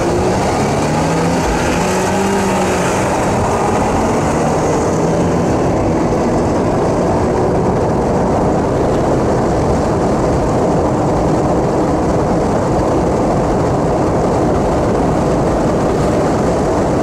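Car engine under hard acceleration from a standing start, heard from inside the cabin: its note climbs and breaks at gear changes in the first few seconds. It then settles into a loud, steady rush of engine, wind and road noise at speed.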